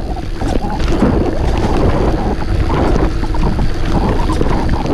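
Wind rumbling on the microphone as a full-suspension mountain bike rolls through soft sand, with scattered small rattles and knocks from the bike over the bumps.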